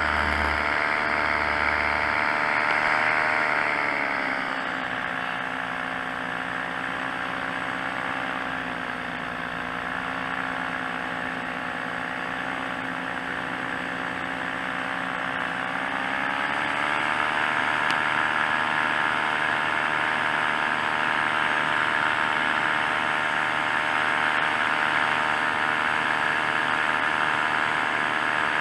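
Paramotor engine and propeller running steadily in flight. About three seconds in the engine speed drops and the pitch falls, holds lower for roughly twelve seconds, then rises again as power comes back.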